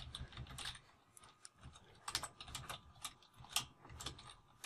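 Computer keyboard being typed on: a dozen or so faint, irregularly spaced key clicks as a line of code is entered.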